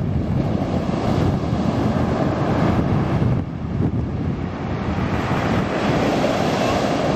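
Sea waves breaking and washing up the beach, with one wash swelling near the end, under a heavy low rumble of wind buffeting the microphone.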